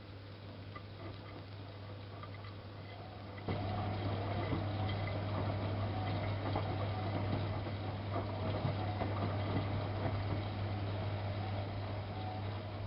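Miele Softtronic W3657 washing machine running mid-wash with a steady low hum and water sloshing. About three and a half seconds in, the hum and the water noise get suddenly louder, as a pump or water flow in the machine switches on.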